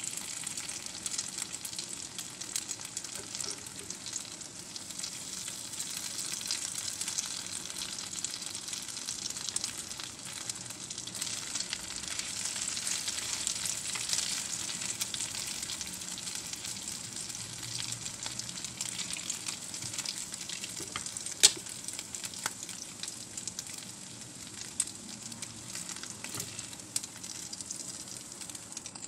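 Oil sizzling and crackling steadily as a tuna pancake fries in a pan, with one sharp click about two-thirds of the way through.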